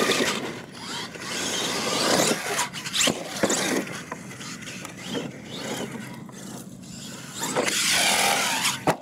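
Radio-controlled monster truck running on dirt: its motor and drivetrain whine as it accelerates, and its tyres scrabble on the loose soil. The whine rises and falls as it flies off a ramp, and there is a sharp thump just before the end, which fits it landing.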